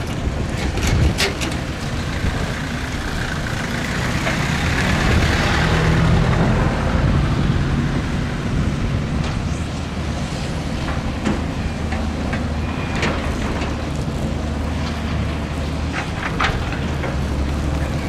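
Diesel engine of heavy earthmoving machinery working under load. It grows louder for a few seconds about four to seven seconds in, with scattered sharp knocks and clanks throughout.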